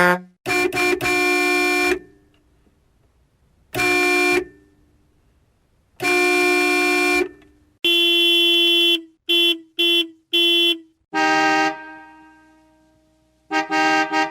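Car horns honking in a run of separate beeps and blasts with silent gaps between. It goes as two quick taps and a one-second honk, then single honks, then a brighter-toned horn giving one blast and three quick beeps, and short beeps again near the end.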